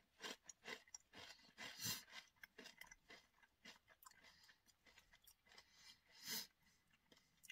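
Faint chewing of a crunchy Takis rolled tortilla chip: irregular small crunches, more of them in the first few seconds, with one louder crunch about six seconds in.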